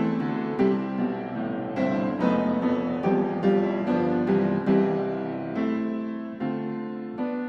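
Background piano music, a gentle melody of single struck notes.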